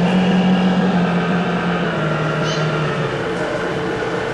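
Radio-controlled model fireboat's motor humming steadily, dropping in pitch about two seconds in and again a second later, as the boat slows.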